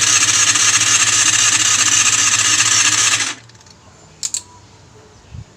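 Yamaha Zeal 250's electric starter cranking the engine for about three and a half seconds, then cutting off without the engine catching: the bike's hard-starting fault.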